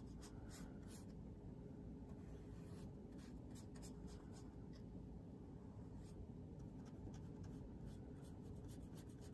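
Faint, short, irregular strokes of a painting tool scratching on watercolor paper, over a low steady hum.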